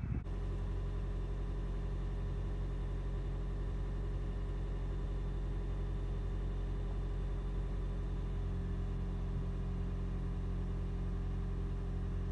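Engine idling steadily, a low even hum at a fixed pitch that begins abruptly just after the start.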